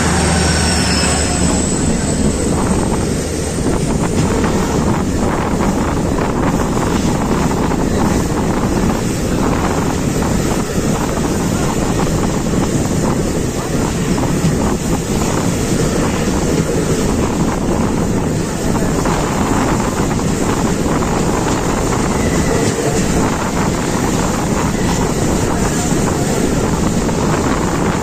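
Passenger train running at speed heard from on board: a steady rumble and rattle of wheels on rails, with wind rushing over the microphone. A faint high tone falls away in the first couple of seconds.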